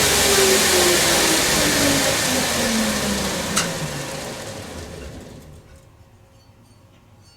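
Power grinder switched off and spinning down: its whine falls steadily in pitch over about three seconds while the running noise fades out, with a single sharp click partway through. The grinding of the shovel tip has just finished.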